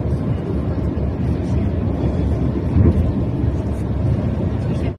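Steady low rumble of road and engine noise inside a moving car, cutting off suddenly at the very end.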